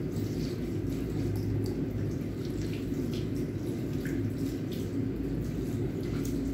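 Tap water running steadily into a sink and splashing over a wet cat being washed, with small splashes and drips throughout.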